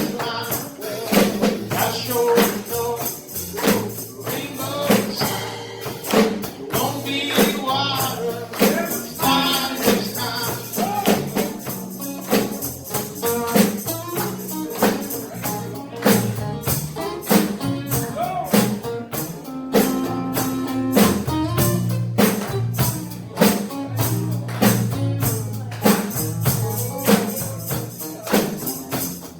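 Music: a dense, fast-pulsing track of rapid percussive clicks with short chopped fragments of a voice.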